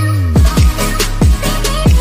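Electronic background music with a steady beat of deep kick drums, about two a second, over a bass line and a melody.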